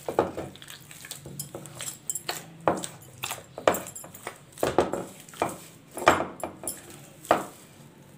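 Hands kneading a stiff flour dough in a metal plate: irregular pressing thuds, about two a second, with the plate knocking and rattling against the table.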